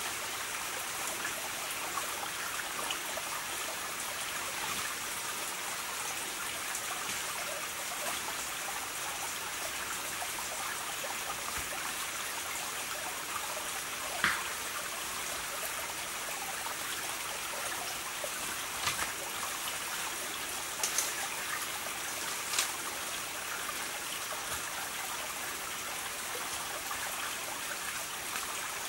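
Steady, unbroken sound of running water, like a small stream, with a few sharp knocks in the second half.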